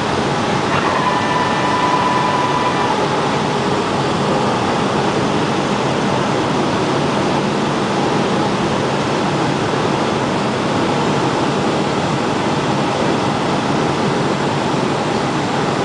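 Steady cabin noise of a Boeing 757 airliner on approach: the jet engines and the air rushing past the fuselage, heard from a window seat over the wing. Just under a second in, a faint click and a steady tone sound over the noise for about two seconds.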